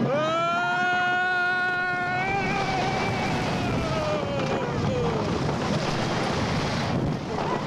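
A rider's long scream as a wooden roller coaster goes down a drop: one held scream that rises a little after about two seconds, then slides down in pitch and fades by about five seconds in. Under it, steady wind noise and the rumble of the train running on the wooden track.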